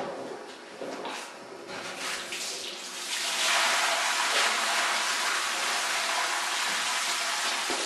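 Water running and splashing: a steady hiss that sets in about three seconds in, after a few seconds of quieter, uneven handling noise.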